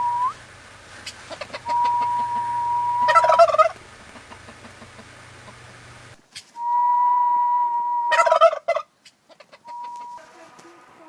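Turkey gobbling twice, a short rattling gobble each time. Each gobble comes right after a long, steady, high note held for about two seconds.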